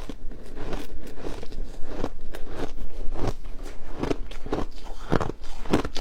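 Hard ice being bitten and chewed close to the microphone: a dense, irregular run of sharp crunches, several a second.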